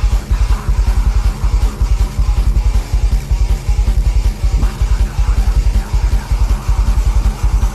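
Instrumental heavy metal: distorted electric guitars over fast, evenly pulsing kick drums at about seven or eight beats a second, without vocals.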